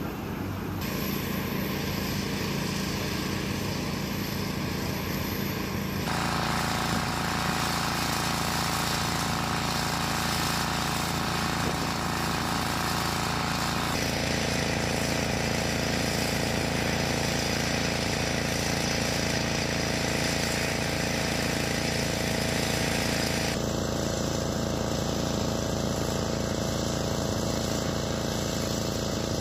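Steady engine and machinery noise on an airfield flight line, with a constant hum and a few steady tones. The noise changes character abruptly several times, about a second in, around six seconds, near the middle and again past twenty seconds.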